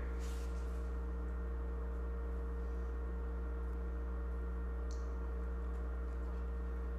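Steady low electrical hum with several faint fixed tones above it, unchanging throughout, and a single faint click about five seconds in.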